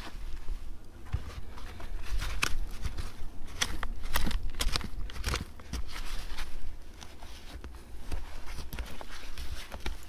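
Metal hand digging tool scraping and raking dry, root-filled soil, with scattered sharp clicks and scratches as dirt and small stones are dragged and flicked aside.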